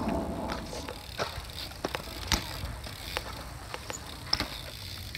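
BMX bike tricks on concrete: the tyres and frame knock and tap against the ground as the rider hops and pivots between wheels, giving an irregular run of sharp knocks, the loudest about two seconds in.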